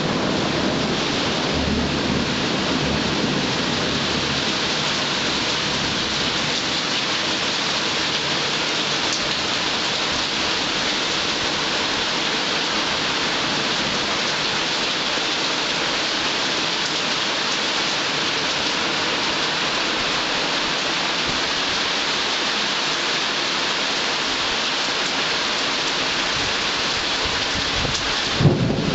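Heavy rain pouring steadily in a thunderstorm. A low thunder rumble fades out over the first few seconds, and a sudden thunderclap comes just before the end.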